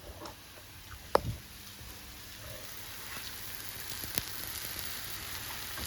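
American-style pancakes frying in a pan, a quiet sizzle that slowly grows louder, with one sharp click about a second in.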